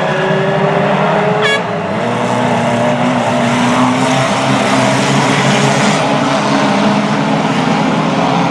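A pack of Reliant Robin three-wheelers racing together, many small engines running at once, with a short high toot about a second and a half in.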